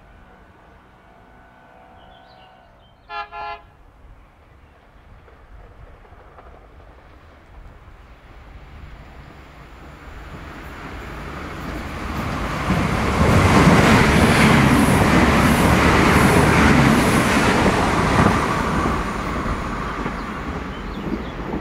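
Irish Rail 22000 class InterCity Railcar, a five-car diesel multiple unit, gives two short horn toots about three seconds in. Its engine and wheel noise then builds from about ten seconds as it approaches and passes, loudest for several seconds before easing off near the end.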